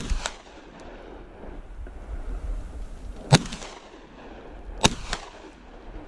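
Three gunshots fired during a wild boar hunt, a second apart and then a second and a half apart. The middle shot is the loudest, and the first and last are each followed quickly by a fainter crack.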